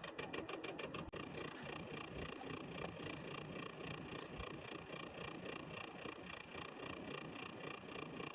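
Vevor diesel air heater running, with a rapid, even pulsing of about five beats a second.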